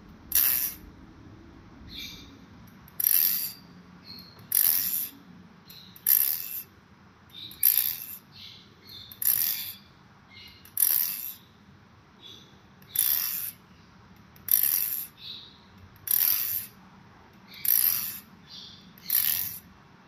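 Balisong butterfly knife (an Apocalypse clone of the Cygnus V2 with 7075 aluminium sandwich handles) being flipped: the handles and pivots clack against each other in short metallic bursts, about a dozen of them, roughly one every second and a half.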